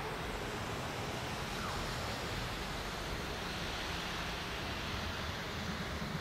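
SBB RABe 511 double-deck electric multiple unit rolling into the station, heard as a steady rushing noise whose low rumble builds near the end as the train draws close.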